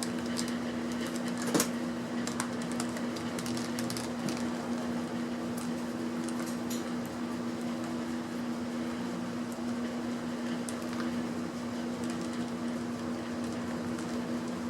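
A steady low machine hum with even background noise, broken by a few light clicks of small objects being handled, the sharpest about a second and a half in.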